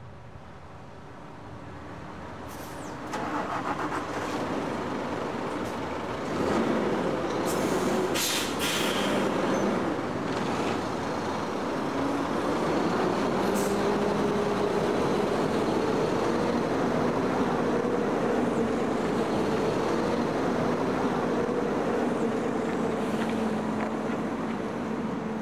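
Shacman heavy tractor unit with a Weichai WP13 diesel engine pulling away: the engine gets louder about three seconds in, then runs and climbs in pitch as the truck moves off. Several short, sharp hisses of air from the air brakes come in the first half.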